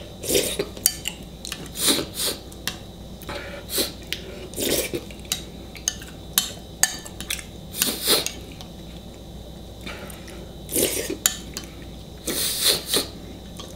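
Metal spoon scraping and clinking against a ceramic bowl of baked beans as it is scooped and eaten from, in short separate bouts, with chewing and mouth sounds of eating between.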